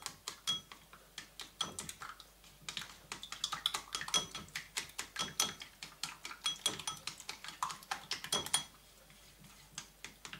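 Wooden chopsticks clicking quickly and irregularly against a ceramic bowl as raw eggs are beaten with cornstarch and seasoning, each tap with a brief ring. The tapping thins out near the end.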